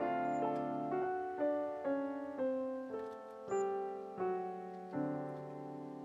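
Slow background piano music, a new note struck about every half second.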